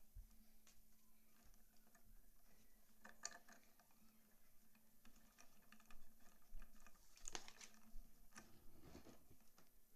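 Faint handling sounds of paracord being knotted on a bracelet jig: soft rustles and small clicks as the cord is pulled through and tightened, with a few sharper clicks in the second half.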